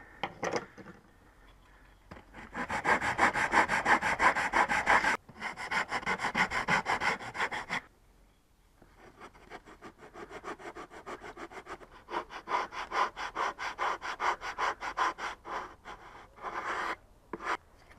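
Sanding block rubbed back and forth over a balsa wood wingtip, shaping it in quick rhythmic strokes. There are two long spells with a short pause about eight seconds in.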